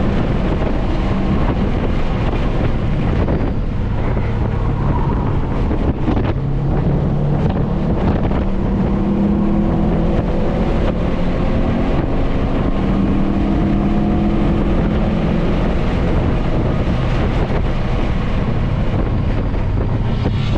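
Subaru WRX STI's turbocharged 2.5-litre flat-four engine under hard track driving, heard from inside the cabin, its note climbing and dropping repeatedly as the car accelerates and slows. Road and wind rush run steadily underneath.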